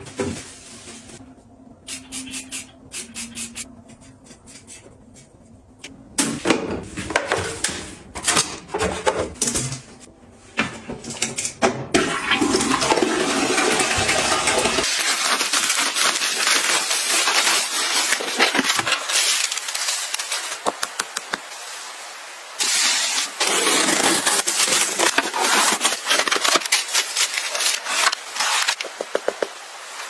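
A toilet in use: clicks and knocks, then a loud rush of water as it flushes. From about halfway comes dense crinkling and rustling: a plastic bubble mailer and cardboard boxes being opened and handled.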